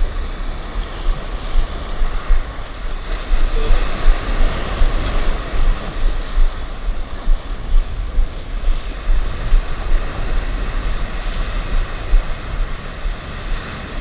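Surf breaking and washing around on a beach, with strong wind rumbling on the microphone.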